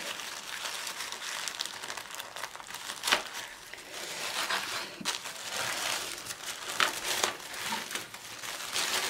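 Tissue paper wrapping crinkling as it is torn open and pulled back by hand, with a few louder, sharper rustles about three seconds in and again near seven seconds.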